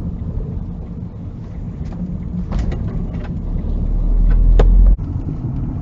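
A car's engine and road noise heard from inside the cabin through a dash cam while it drives slowly through a turn, with a few sharp clicks. A low rumble builds to its loudest about four to five seconds in, then cuts off suddenly.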